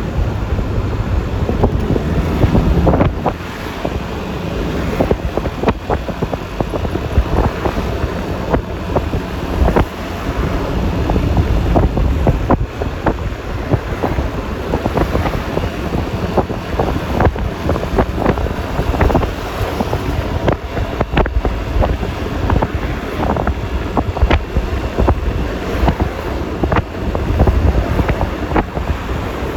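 Wind buffeting a phone microphone on a moving Yamaha Lexi LX 155 scooter, a loud rumbling rush with frequent crackling pops, mixed with road and engine noise.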